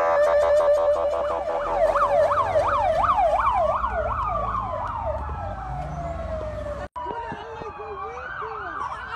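Police vehicle sirens from a passing convoy. First a rapid warble, then a fast yelp sweeping up and down about three times a second over a slower wail that climbs and then falls away, growing quieter. After a brief break, fainter sirens carry on.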